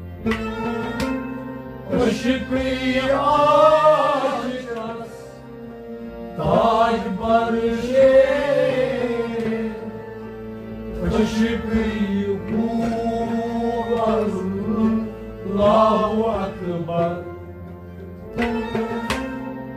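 Instrumental passage of Kashmiri Sufi music: a harmonium holds steady reedy tones while a bowed string instrument plays a sliding, wavering melody in phrases a few seconds long, with a few sharp taps now and then.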